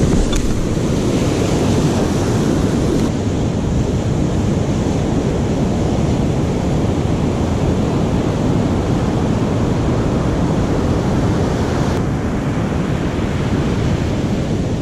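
Ocean surf breaking on a sandy beach, with wind buffeting the microphone: a steady rushing noise. The hiss thins out about three seconds in.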